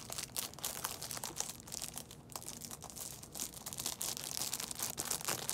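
Plastic packaging crinkling and crackling in a steady run of small irregular crackles as it is handled and unwrapped.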